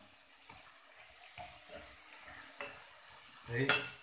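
Onion, garlic and tomatoes sizzling in hot oil in a cooking pot, stirred with a wooden utensil that knocks lightly against the pot a few times. A brief louder sound comes near the end.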